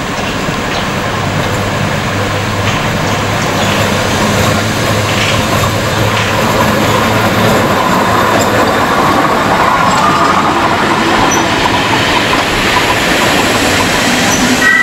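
Locomotive-hauled passenger train, led by the Metropolitan Railway electric locomotive Sarah Siddons, running through the station close by: wheels rumbling and clicking over the rails, growing gradually louder as the locomotive and coaches pass.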